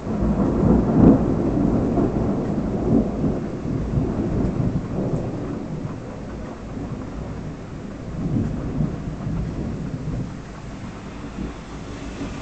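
Thunder rumbling in a thunderstorm. It starts suddenly, peaks about a second in and rolls away slowly, then swells again briefly about eight seconds in.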